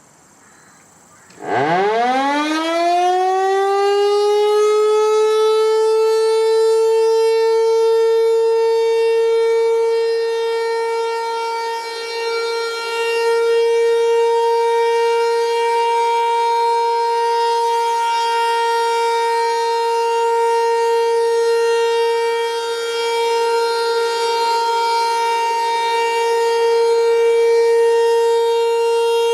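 Federal Signal Equinox outdoor warning siren starting up about a second and a half in: its pitch winds up quickly from a low growl, then holds one loud steady tone, the full-alert steady signal of a nuclear plant siren test.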